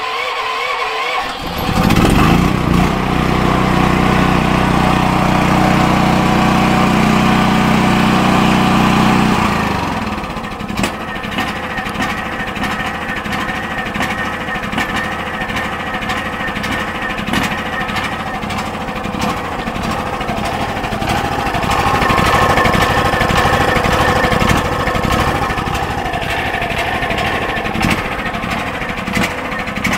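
DuroMax XP10000E portable generator engine, running on propane through a conversion kit, is key-started and catches about a second and a half in. It runs at full speed for several seconds, then its idle control drops it to a lower idle with no electrical load, and it runs on steadily.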